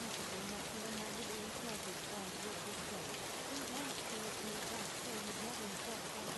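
Steady, even rain sound with a faint voice speaking underneath it, the quiet spoken affirmations of a subliminal track.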